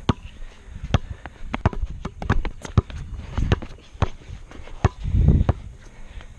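Basketball dribbled on an asphalt court: a run of sharp bounces at an uneven pace, mixed with sneaker footsteps, and a louder low rush about five seconds in.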